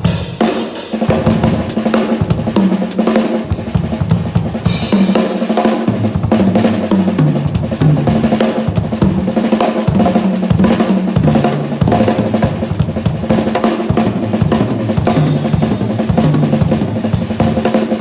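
Drum kit played continuously, snare and bass drum hits, over low bass notes that step from pitch to pitch.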